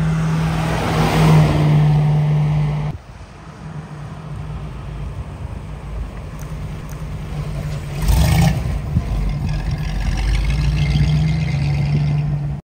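1959 Chevrolet Corvette's V8 running through its bumper-exit exhaust as the car drives by at low speed, a steady deep engine note. About three seconds in the level drops suddenly to a quieter stretch. There is a brief louder swell about eight seconds in, the engine note strengthens again near the end, and then it cuts off abruptly.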